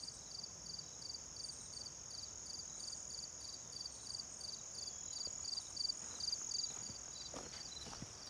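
Insects chirping outdoors: a steady high-pitched trill with a regular pulsing chirp about three times a second. A few soft knocks come in near the end.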